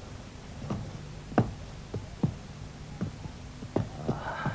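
Footsteps on stone paving: irregular single steps, a sharp tap every half second or so, over a faint steady hum.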